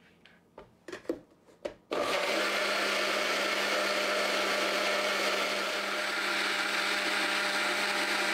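A few light knocks as the small personal blender's cup is set onto its base. About two seconds in, the motor starts and runs steadily with a constant hum, blending ranch dressing with fresh dill and green onion only briefly so the herbs stay as green flecks.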